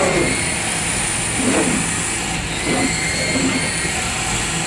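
Double-head circular-knife CNC cutting machine running: a steady mechanical hum with thin, high, steady whines and a few short swells as the heads move.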